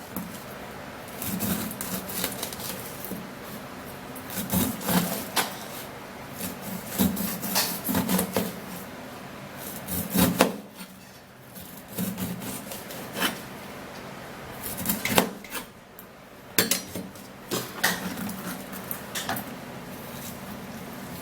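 A knife cutting pineapple against a cutting board: irregular sharp knocks every second or so, with rasping strokes between them as the blade saws through the fruit.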